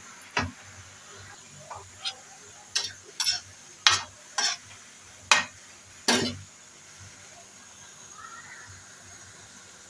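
Flat metal spatula scraping and turning grated carrot and bottle gourd in a pan, in about nine quick strokes over the first six seconds, then stopping. A faint steady sizzle of the vegetables frying runs underneath.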